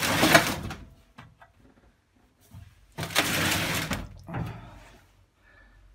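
Two close rustling scrapes, about a second each, at the start and again about three seconds in, from a hand and sweatshirt sleeve rubbing and brushing against the open sheet-metal washing machine cabinet, with a few light clicks between.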